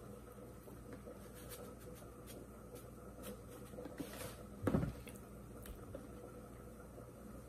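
Faint squishing and rustling of hands turning raw, seasoned chicken wings in a plastic container, with one louder handling bump a little past halfway.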